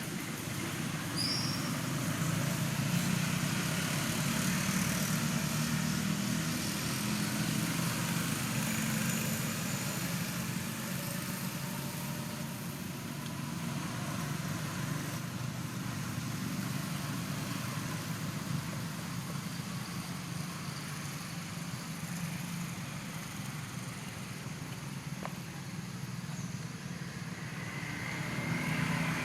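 Steady low rumble of a motor vehicle engine running, under a constant hiss.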